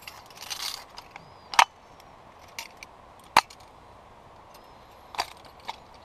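Sharp clicks and snaps of a small red metal lantern being handled and fitted together on a tent pole: a short scratchy rustle, then three loud clicks spaced about two seconds apart.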